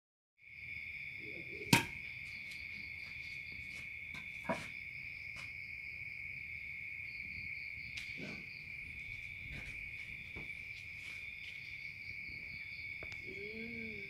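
Night insects trilling steadily on one high note. A sharp click about two seconds in is the loudest sound, and a weaker click follows a few seconds later.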